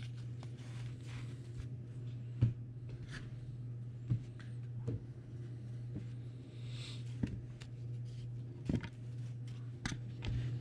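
Cardboard trading cards being handled: a few soft taps and a brief rustle as cards are flipped through and set down on a stack, over a steady low hum.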